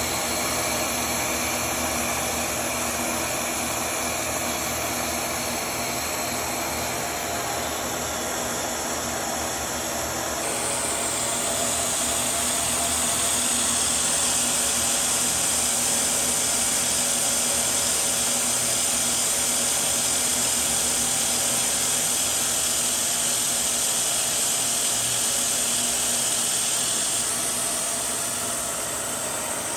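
Machine tool running steadily in a machine shop: an even mechanical hiss and hum, which changes abruptly about ten seconds in to a brighter, slightly louder hiss.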